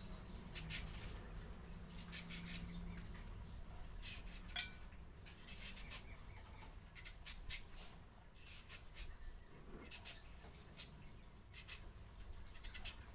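Large kitchen knife slicing through a peeled apple mango held in the hand: a quick, irregular run of short, crisp cutting clicks.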